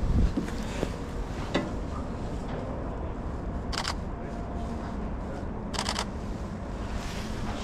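Handling noise of a body-worn action camera as the climber moves: clothing and gloves rubbing, with a low thump at the start and short rustles about a second and a half, four and six seconds in, over a steady low rumble.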